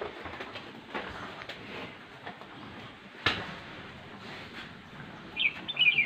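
Shed ambience as buffaloes feed at concrete mangers: a low rustle with scattered knocks, one sharp knock a little past halfway, and a few quick high bird chirps near the end.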